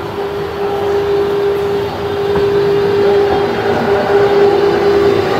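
RhB electric railcar No. 51 rolling slowly past, with a steady electric hum from its drive over the rumble of its wheels, growing louder as it comes closer.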